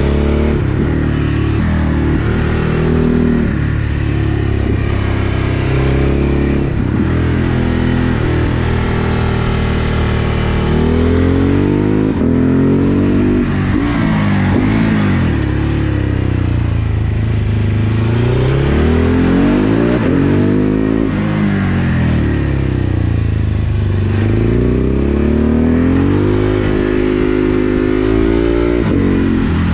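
Ducati Hypermotard 950 SP's 937 cc Testastretta V-twin, fitted with a decat pipe and a remapped ECU, pulling hard and rising in pitch out of the bends. Between the pulls it drops back on the overrun. The rise-and-fall repeats several times, loudest in the second half.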